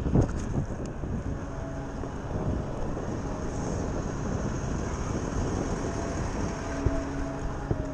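Steady rumble of city street traffic with a transit bus running close alongside, mixed with wind on the microphone; a brief bump comes right at the start.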